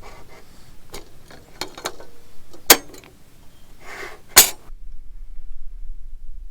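Small clicks and clatter of objects being handled, with two sharp, loud knocks a second and a half apart near the middle; then the sound drops suddenly to a low steady rumble.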